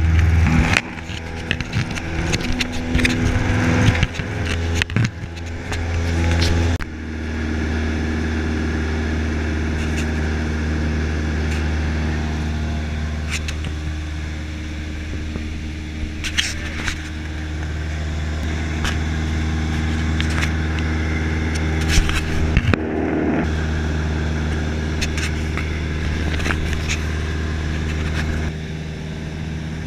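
Cessna 172's piston engine and propeller droning steadily in cruise, heard inside the cabin. Irregular knocks and rustles break into it during the first several seconds.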